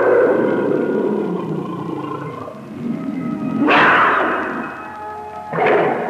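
Horror sound-effects recording: a sustained organ-like chord droning under three loud, roar-like outbursts. The first begins with a rising pitch and lasts about two seconds. The next two, about 4 s and 5.5 s in, are shorter and noisier, each dying away quickly.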